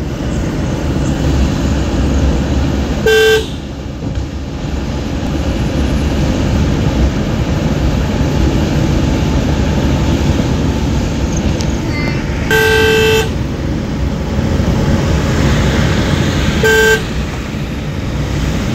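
Vehicle horn sounding three times: a short toot, a longer blast about halfway through, and another short toot near the end, over the steady low rumble of the engine and tyres heard from inside the cabin.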